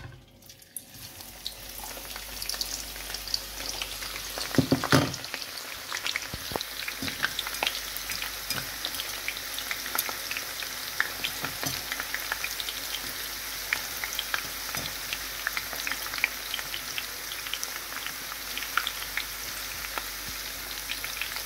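Sliced onions going into hot oil in a frying pan, with a loud rush of sizzle about five seconds in, then a steady sizzling and crackling of many small pops as they fry.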